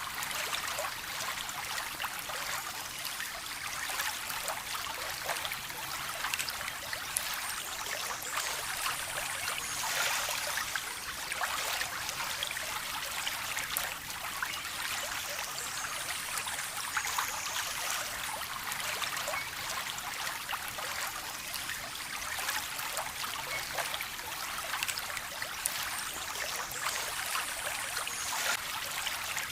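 Running water of a small stream, trickling and splashing steadily with many tiny droplet splashes.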